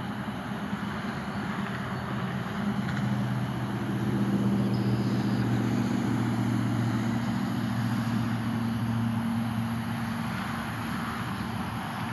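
A motor engine hums steadily in the distance over a wash of outdoor background noise. It swells a few seconds in and eases off near the end.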